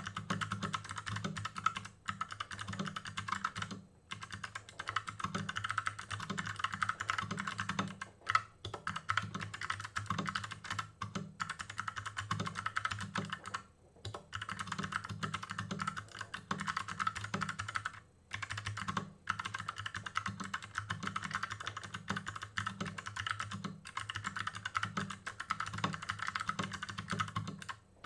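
Fast, continuous touch-typing on a custom 60% mechanical keyboard with Kailh Box Pink switches, a steel plate and an aluminium case: a rapid stream of key clicks, broken by short pauses every few seconds.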